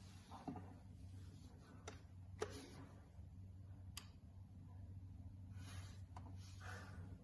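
Near silence: a faint steady low hum with a few soft clicks, the sharpest about two and a half and four seconds in.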